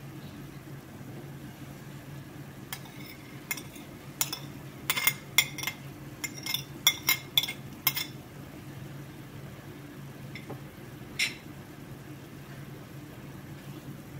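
Metal spoon tapping and scraping against a china plate as barberries are spooned into a frying pan: about a dozen sharp clinks in quick succession, with one more a few seconds later. A steady low hum lies underneath.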